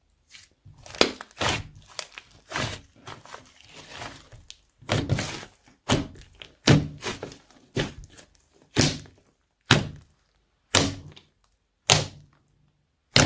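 Slime being pressed and poked by hand, making a series of sharp, wet popping clicks with a low thud to each. They come close together at first, then settle to about one a second.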